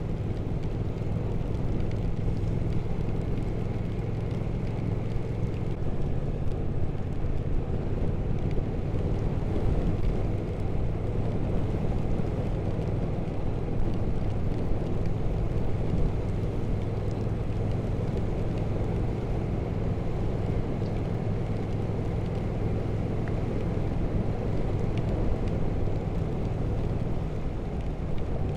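Triumph Speed Twin 1200's parallel-twin engine running steadily at cruising speed, with steady wind and road noise.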